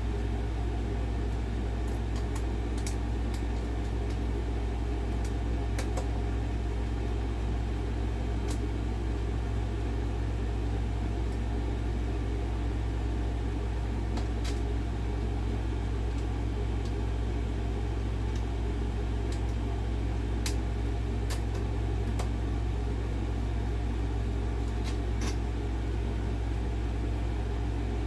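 Steady low electrical-sounding hum with a faint mid-range hiss, broken by scattered light clicks of small screws and metal parts being handled.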